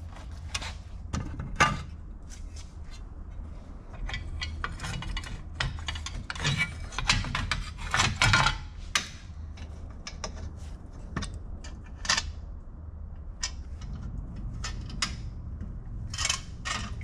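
Hand tools working on an old outboard motor: irregular metal clicks, scrapes and light knocks, thickest about six to nine seconds in.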